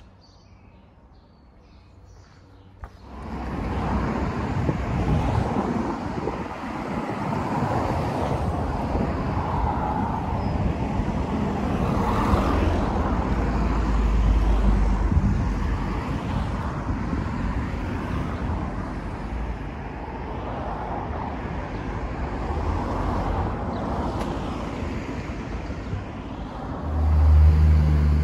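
Road traffic noise, a steady rush with low rumble, starting suddenly about three seconds in after a quieter stretch with faint birdsong. Near the end a vehicle's engine hum comes in loud and close.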